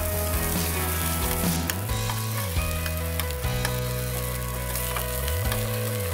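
Beef burger patties sizzling on a hot gas-grill griddle plate, a steady frying hiss with a few light clicks, under background music with a sliding bass line.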